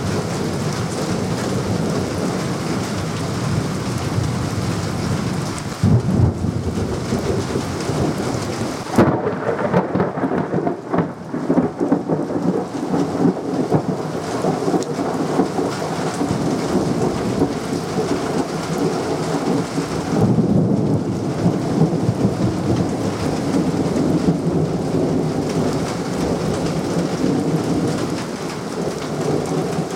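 Thunderstorm: steady rain with rolling thunder. A sudden thunderclap comes about nine seconds in and rumbles on for a few seconds, with further swells of rumbling around six and twenty seconds in.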